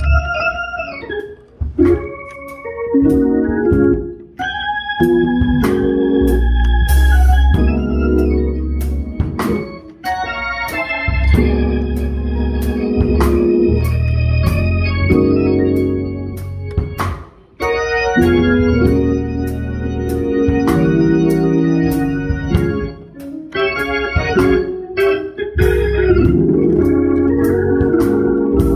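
Two-manual church organ played in sustained full chords over a strong bass line, the phrases broken by a few brief pauses.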